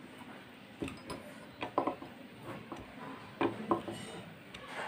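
Screwdriver checking and tightening the screws on an Ametek vacuum cleaner motor: a series of small, sharp metallic clicks and taps at irregular intervals.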